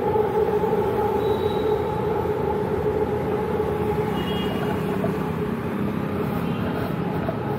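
City traffic noise with a steady engine or motor hum holding two pitches, which slowly fades, and faint short high beeps.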